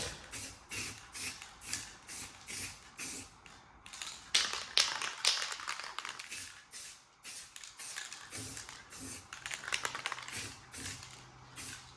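Aerosol spray-paint can hissing in short, rapid bursts, roughly two to three a second, as paint is sprayed onto a steel wheel.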